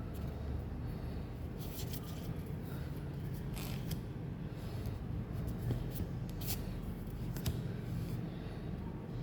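Pokémon card packs and cards being handled: short crackling rustles of foil wrappers and card stock, a second or two apart, over a steady low hum.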